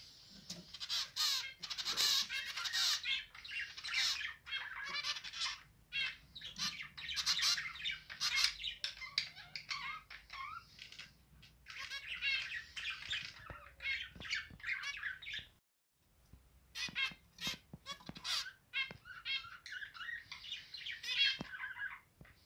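Zebra finches calling and singing: a dense, busy run of short squawking calls, chirps and song phrases from several birds, briefly cutting out about two-thirds of the way through.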